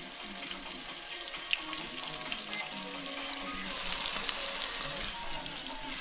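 Breaded pike fillets sizzling steadily as they shallow-fry in hot oil in a pan.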